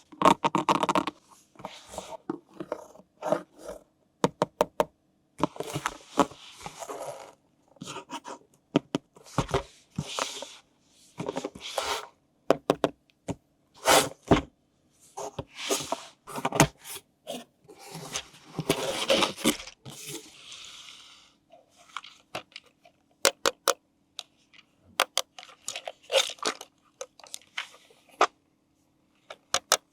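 Unboxing handling noises: packaging crinkling and tearing, with sharp plastic clicks and scrapes in irregular bursts.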